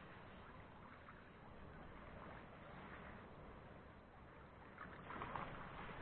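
Faint, steady wash of sea water and wind, with a brief louder rush about five seconds in.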